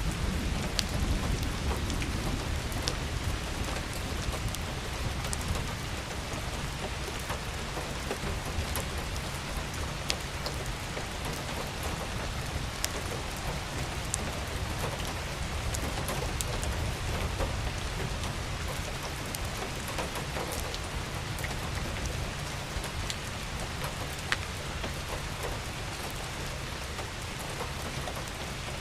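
Steady rain falling on a surface, with scattered individual drops ticking above the hiss and a low rumble underneath that is strongest in the first few seconds.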